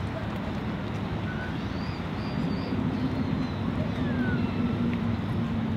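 Steady outdoor city and traffic noise with a low engine hum that swells about two seconds in and eases near the end.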